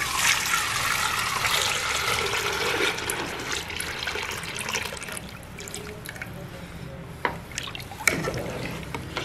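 Buttermilk and gram-flour batter poured from a jug into a pot of hot masala, a heavy gushing pour that is loudest in the first few seconds and tapers off. Near the end a couple of sharp clinks of a metal slotted spoon against the aluminium pot as the mixture is stirred.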